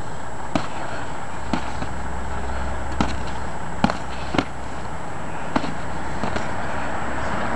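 Boxing gloves landing in sparring: a string of short, sharp padded hits, about seven in all and the loudest around three to four and a half seconds in, over a steady low background rumble.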